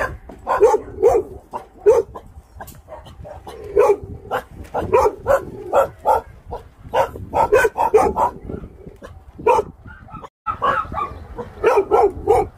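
Kennelled dogs barking repeatedly, short barks coming in quick runs of two or three, with a moment's break a little before the end.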